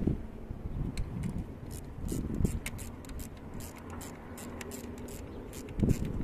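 Irregular small metal clicks and taps of a hand tool working on the injection-pump gear and mounting of a Caterpillar 3054C diesel engine during installation of the injection pump, over a low background rumble.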